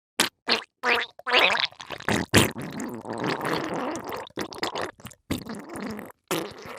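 Cartoon diarrhea sound effect: a few short sharp wet blasts, then a long gurgling, sputtering stretch, and a last couple of splutters near the end.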